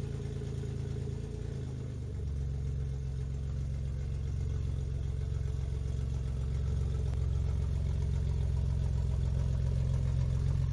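A vehicle engine idling steadily, its low even firing shifting slightly about two seconds in.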